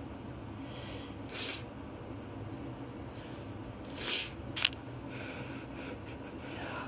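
A person breathing out sharply through the nose: two short hissing snorts, about a second and a half in and about four seconds in, the second followed by a brief click.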